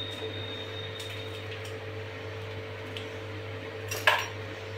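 Steady low hum and hiss of a lit gas burner heating a pan of water, with a single sharp knock about four seconds in.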